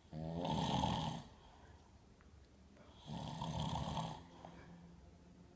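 A man snoring in his sleep: two snores about three seconds apart, each just over a second long.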